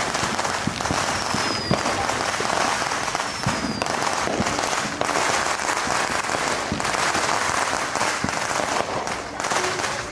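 Dense, unbroken crackling and popping of many fireworks and firecrackers going off at once. Two faint falling whistles come in the first few seconds.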